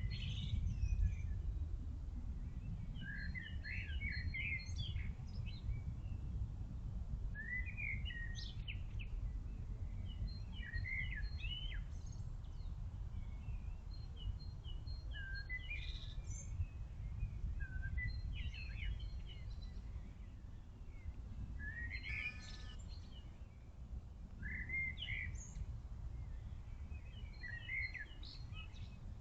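A songbird singing short, quick phrases about every three seconds, over a steady low rumble.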